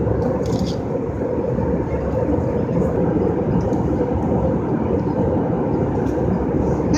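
Steady drone of an airliner cabin in flight: engine and air noise with a constant hum.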